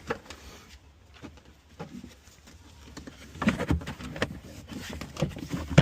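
Light clicks and knocks of plastic trunk trim being handled and clipped back into place, sparse at first and busier from about three and a half seconds in, ending on one sharp knock.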